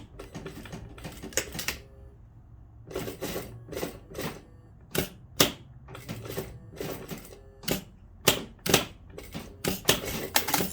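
Sewing machine stitching in short, stop-start runs, its needle clattering in quick bursts with brief pauses between them.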